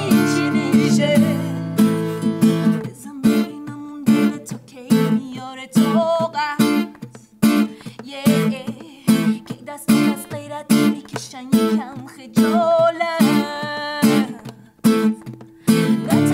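Acoustic guitar strummed and picked in a steady rhythm, accompanying women singing.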